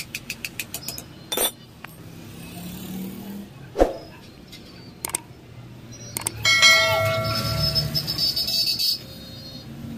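Hammer tapping rapidly and lightly on the metal of a Swift Dzire front strut (shock absorber) held in a vice, about five taps a second, stopping about a second in, followed by a few single metal knocks. Near the end, a louder steady tone with several pitches sounds for about two and a half seconds.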